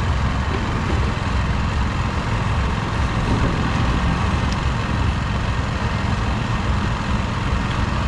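A vehicle engine idling, a steady low rumble over the general noise of a busy street.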